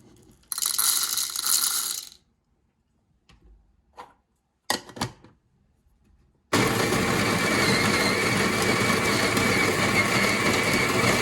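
Coffee beans poured into a grinder with a rattle, a few clicks, then a Nivona CafeGrano electric burr grinder runs steadily for about five seconds, grinding a single dose of beans for espresso at almost its finest setting, and stops suddenly.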